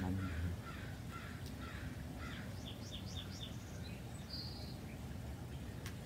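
Backyard birds calling: short chirps, then a quick run of four or five high notes about two and a half seconds in and a short buzzy high note just after four seconds. A brief low hum at the very start.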